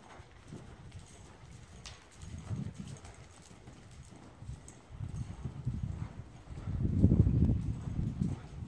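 Hoofbeats of a ridden sorting mare working in deep arena sand: dull, irregular thuds that come and go as the horse moves, loudest about seven seconds in.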